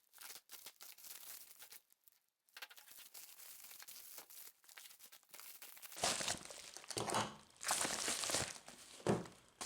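Package wrapping crinkling and being torn open, faint handling at first, then louder crinkling and ripping for the last few seconds.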